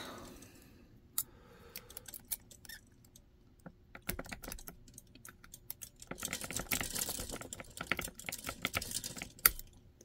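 Metal lock pick raking the pin stack of a four-pin Britannium monoblock shutter lock under tension: scattered sharp clicks at first, then a dense run of rapid clicking and scraping in the second half.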